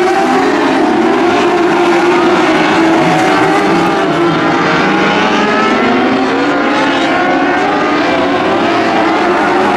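Several small race cars' engines running together, their pitches wavering up and down as they rev and slow.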